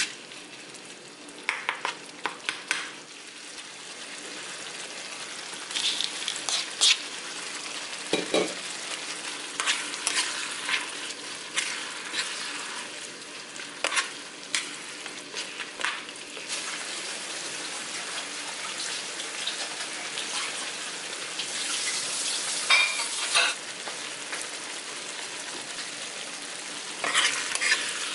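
Tomato sauce with pork pieces sizzling in a small non-stick frying pan, with a steady hiss, while a metal spoon stirs and scrapes against the pan. The spoon gives clusters of sharp clicks and taps every few seconds.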